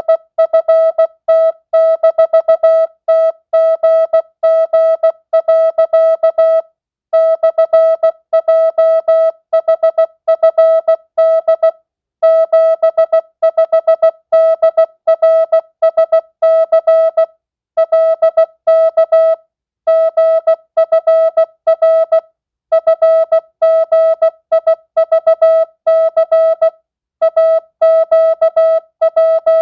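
Morse code (CW) sent at 16 words per minute with non-Farnsworth spacing: a single steady beep tone keyed into short dits and long dahs, grouped into letters and words of mixed length, with brief pauses between the words.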